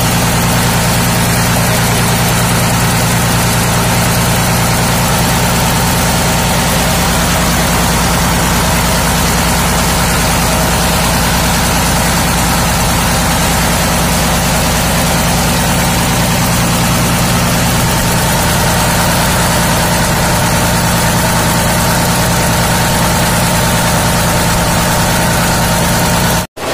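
Tatra 815 8×8 truck's air-cooled V12 diesel engine idling steadily, just started after a rebuild with new piston rings on all twelve cylinders. The sound cuts off abruptly near the end.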